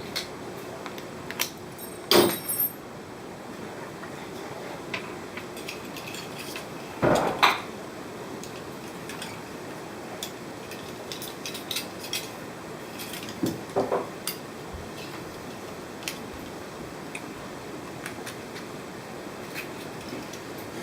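Scattered metallic clinks and knocks of hand tools against metal fittings as a rusty aquarium fitting is worked loose, with a few louder knocks about two, seven and fourteen seconds in.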